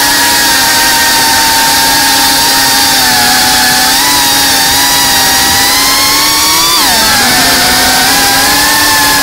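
FPV quadcopter's brushless motors and propellers buzzing loudly, heard from the drone itself. The pitch holds fairly steady and edges up, drops sharply about seven seconds in, then climbs again near the end as the throttle changes.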